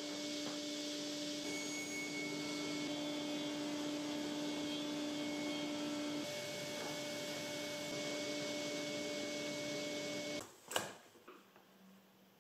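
Felder sliding-table panel saw running with a steady hum and whine while an oak-veneer board is fed through the blade. The sound cuts off suddenly about ten seconds in, followed by a single sharp knock.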